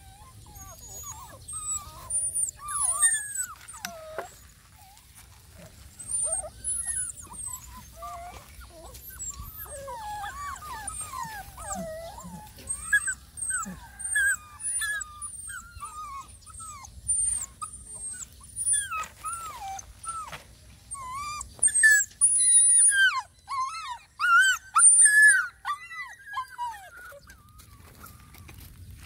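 Puppies whimpering and crying: many short, high whines that rise and fall in pitch, coming in bursts, with the loudest crying about three quarters of the way through.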